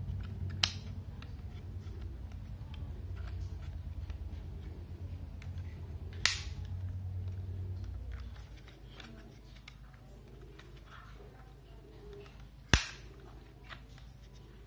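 Three sharp plastic clicks, about six seconds apart, as the folding arms of an Eachine E56 selfie drone are handled and moved. A low background rumble fades out about two thirds of the way through.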